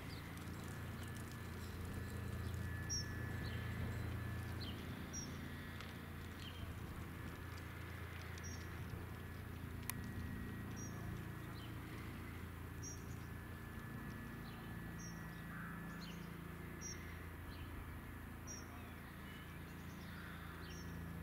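Low, steady drone of a distant Airbus (Eurocopter) AS365 Dauphin helicopter approaching, under birds chirping: short high calls repeating every couple of seconds.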